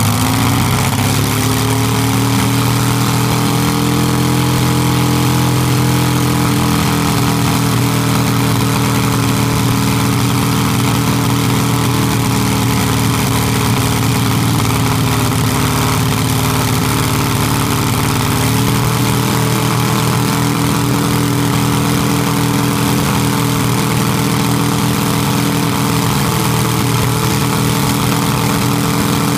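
Air-cooled Volkswagen flat-four engine on an open test stand running flat out through open exhaust stacks, throttle held wide open with the carburetor return spring removed, being run to destruction. It climbs to speed in the first second, then holds a loud, steady note that shifts slightly about 18 seconds in.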